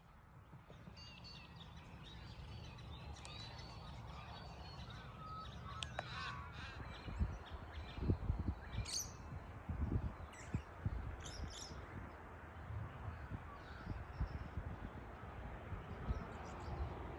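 Outdoor morning birdsong fading in: crows cawing and smaller birds chirping, over a low, gusty rumble on the microphone.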